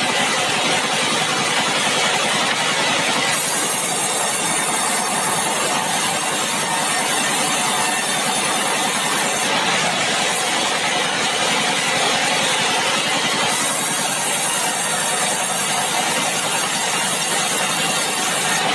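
Engine-driven sawmill machinery running steadily while red meranti logs are milled. A high hiss comes in twice, about three seconds in and again about thirteen seconds in, each lasting several seconds.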